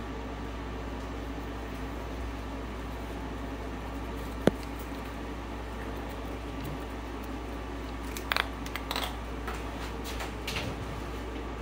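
Cardboard box and paper towel being handled over a glass terrarium: one sharp click about halfway through, then a run of short scrapes and crinkles near the end, over a steady background hum.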